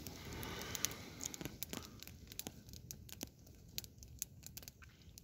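Small campfire crackling faintly, with irregular sharp pops and snaps.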